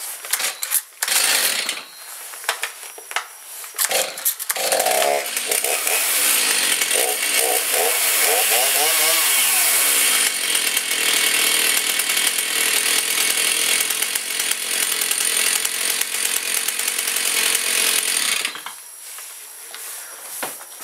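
Stihl MS 290 two-stroke chainsaw started on choke: several pulls of the starter cord, then the engine catches about four to five seconds in, revs up and down, runs loud and steady, and cuts off suddenly near the end.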